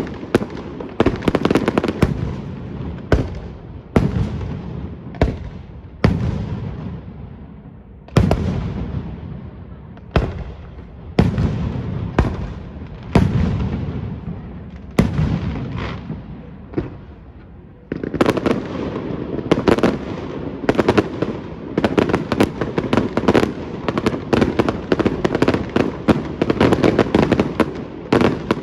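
Aerial fireworks going off: a loud bang every second or two, each followed by a rumbling echo that dies away. About two-thirds of the way through they give way to a dense, rapid barrage of many bangs close together.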